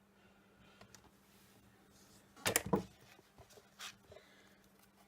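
Two knocks about a quarter second apart near the middle, then a lighter tap about a second later, against quiet room tone.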